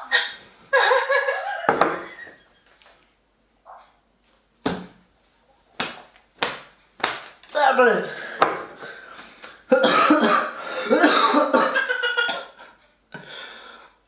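A man's wordless vocal reactions to the burn of chilli sauce: groans and exclamations, with a few short sharp sounds in the middle. The longest outburst comes about two thirds of the way in.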